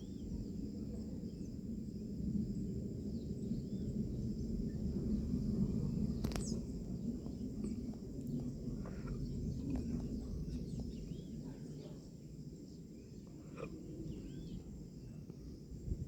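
Jet engines of a Boeing 777-200LR rumbling at a distance, swelling to a peak about six seconds in and then fading. Birds chirp over it, and there is a single click near the loudest point.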